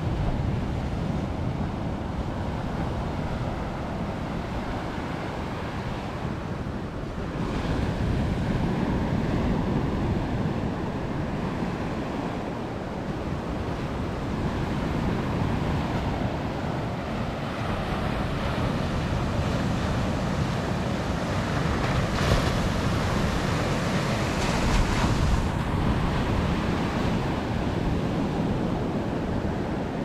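Ocean surf breaking on a sandy beach: a continuous rush and wash of waves, swelling louder with bigger breakers twice, about a quarter of the way in and again past two-thirds of the way through.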